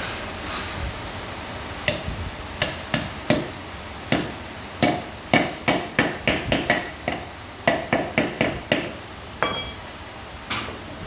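Hammer tapping on metal parts of a Mercedes gearbox during reassembly: about twenty sharp knocks at an uneven pace, starting about two seconds in, with a short metallic ring near the end and one last knock.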